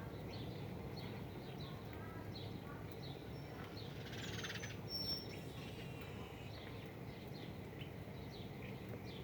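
Several small birds chirping, many short calls over a steady low background rumble, with a brief rapid trill about four seconds in.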